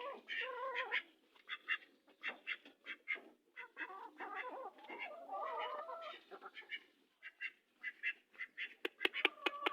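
Farmyard poultry calling: a rapid, irregular series of short quacking calls, some overlapping.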